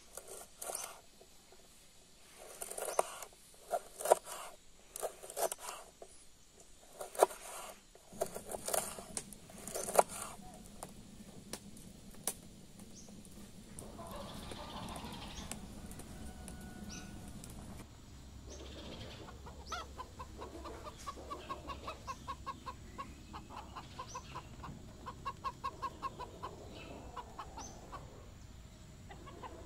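A kitchen knife chopping green peppers on a wooden cutting board: sharp, irregular chops through the first ten seconds or so. A wood fire burns in a clay stove in between, and from about halfway on domestic hens cluck in quick runs of short calls.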